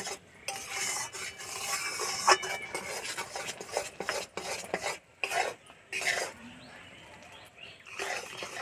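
A spatula stirs thick, bubbling sugarcane jaggery in a metal wok, scraping and clicking irregularly against the pan. The scraping eases off for a couple of seconds about two-thirds of the way through. The jaggery is being boiled down toward the set needed for sesame laddus.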